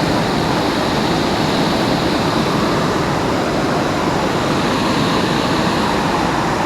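Steady rushing of a fast-flowing river, an even roar of moving water.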